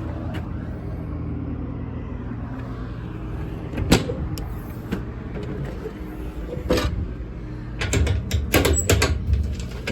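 Service truck body compartment door being unlatched and opened: a sharp metal click about four seconds in, another a few seconds later, then a cluster of clunks and rattles near the end, over a steady low hum.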